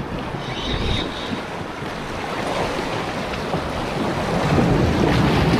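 Sea waves washing, with wind buffeting the microphone in a steady rush of noise.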